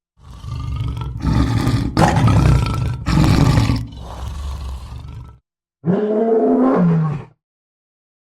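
Lion roaring and grunting: a run of deep, rough calls, a short break, then one more call that cuts off about seven seconds in.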